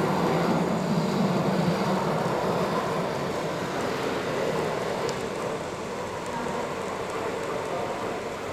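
N-scale model train rolling along its track: a dense, steady rattle of small wheels on rail. It is loudest at first and slowly fades.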